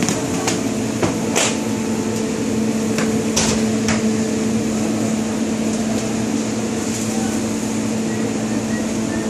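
Steady droning hum of commercial kitchen equipment over a constant rush of noise, with a few sharp knocks and clicks: once about half a second in, once about a second and a half in, and twice between three and a half and four seconds in.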